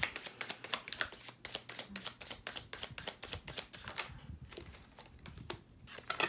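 A tarot deck being shuffled by hand: a quick run of crisp card clicks for about four seconds, thinning to a few scattered taps near the end.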